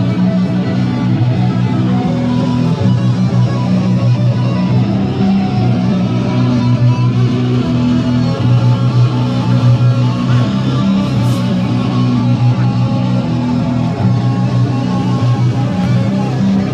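Amplified six-neck electric guitar played in a soundcheck, with held low notes that change every second or so.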